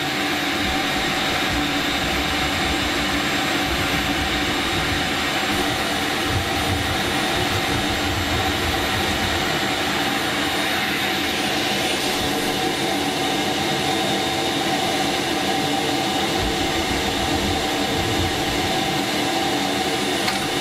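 Vacuum cleaner running steadily, its hose nozzle held against a drywall ceiling to catch dust as a keyhole saw cuts a hole. Its whine shifts up in pitch about eleven seconds in.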